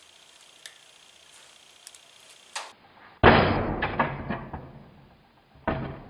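Stripped solid copper wire dropped into a plastic tub: a loud knock with a clatter of smaller hits that dies away over about a second and a half, then a second knock near the end. Before it, only faint small clicks of wire being handled.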